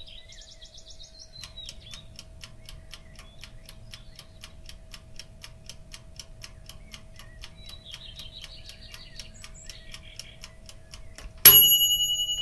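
Sound effects: a clock ticking about four times a second with birds chirping, ending with a single loud bell ding that rings on and slowly fades.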